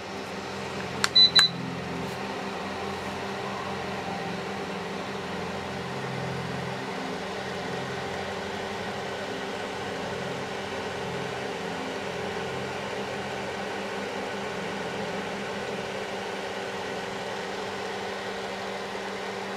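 DeLonghi ceramic fan heater running with a steady fan hum while it oscillates. About a second in come two short, high electronic beeps, the heater's control signal.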